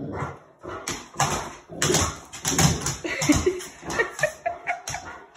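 A large dog's paws and claws scuffling and clicking on a laminate floor during rough play with a person, as a string of irregular knocks and scrapes.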